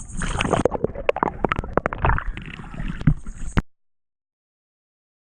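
Water sloshing and gurgling with many sharp knocks and clicks over a low rumble, typical of wading and handling gear in shallow water. It cuts off abruptly to dead silence about three and a half seconds in.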